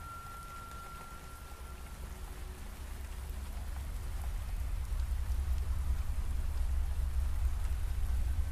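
Steady rain falling, over a deep low rumble that grows louder through the second half.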